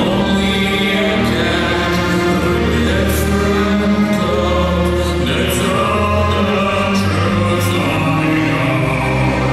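Live orchestra with a choir singing slow, sustained chords.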